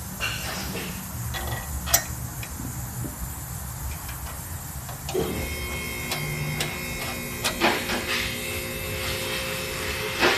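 Metal tool-cart parts and hand tools clinking and knocking during assembly of a rolling toolbox, with a steady humming tone joining about five seconds in.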